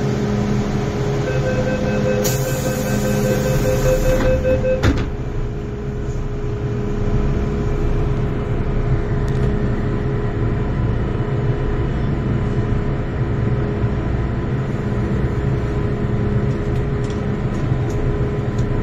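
MTR M-Train door-closing warning: a rapid series of beeps for about three and a half seconds as the doors slide shut, ending in a knock about five seconds in. After that, the train's steady hum and rumble continue.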